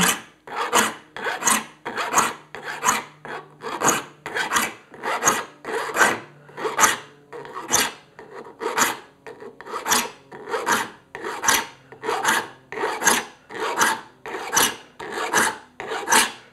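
Hand saw file rasping across the steel teeth of a 7-point crosscut handsaw in short, even strokes, about two a second, sharpening the teeth to a crosscut.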